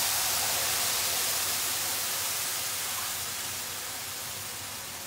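Loud hiss and sizzle of cold water hitting freshly roasted semolina in a hot pan, boiling up with steam and slowly dying down: the water being added to the roasted sooji for halwa.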